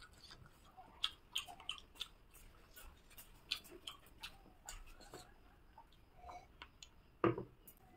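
Quiet chewing of rice and chicken curry eaten by hand, with small wet mouth and finger-licking clicks scattered throughout. A louder thump a little past seven seconds.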